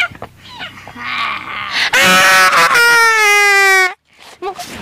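A loud, drawn-out wailing cry from a voice, held for about two seconds with its pitch sinking slightly, then cutting off suddenly.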